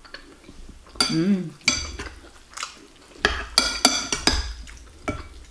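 Metal spoon and fork clinking against a ceramic soup bowl as they stir the soup: a string of sharp, ringing clinks, bunched most closely about three to four and a half seconds in.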